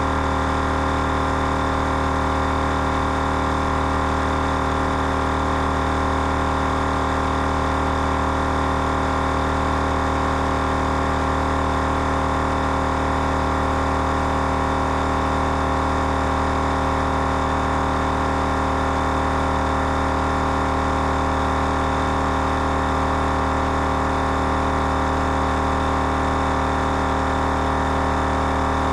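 Twin-head portable air compressor running steadily under load, a constant motor drone with steady tones, pumping up four 4x4 tyres at once through a four-way inflation hose kit.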